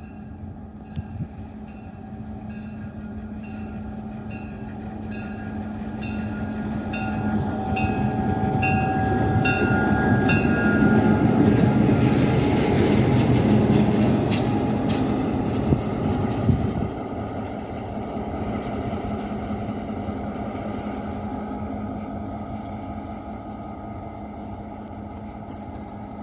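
EMD GP38-2 diesel locomotive running close by, its engine swelling to its loudest about halfway through and then easing off. A regular ringing sounds about twice a second through the first ten seconds or so.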